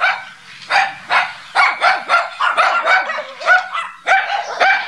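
Farmyard animals calling in a quick run of short, high yelping cries, two or three a second, overlapping one another.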